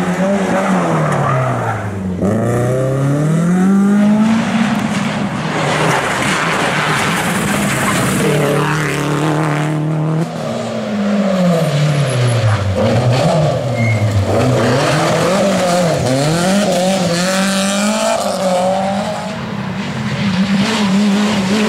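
Rally car engines at full effort, several cars in turn. Each engine's pitch drops as the car brakes and shifts down for a corner, then climbs again as it accelerates through the gears.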